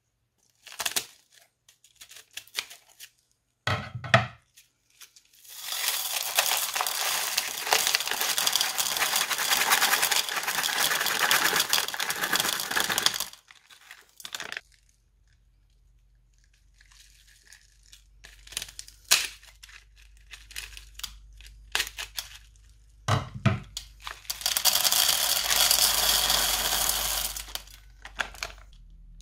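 Small beads pouring out of a plastic piping bag into a bowl as a dense rattling stream, with crinkling of the bag and scattered sharp clicks of beads landing. A long pour comes about five seconds in, and a second, shorter one comes near the end.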